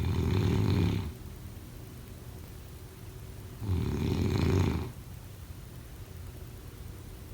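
Snoring in a slow, even rhythm: two snores about four seconds apart, each lasting about a second.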